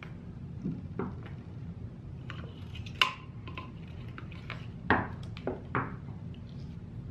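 Scattered light clicks and knocks from hands handling a quadcopter frame and its wiring on a table. The sharpest comes about three seconds in, with two more around five to six seconds in, over a steady low hum.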